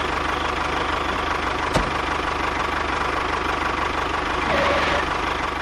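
Engine idling steadily with a fast, even knocking beat.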